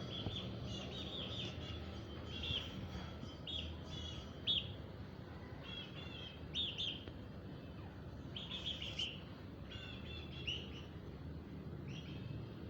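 Aseel chicks peeping: short, high chirps in small clusters, coming irregularly over a steady low background hum.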